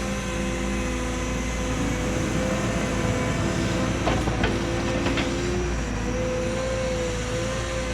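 Cat 314E excavator's diesel engine running steadily under load, with a steady whine, and a few short clanks as it moves dirt about four to five seconds in.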